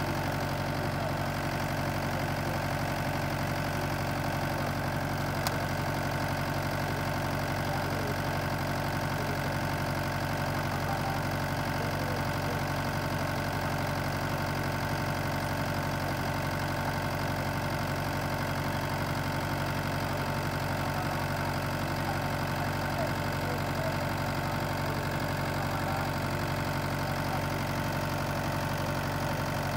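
Mahindra 5045 tractor's diesel engine idling steadily, its pitch and level unchanged throughout.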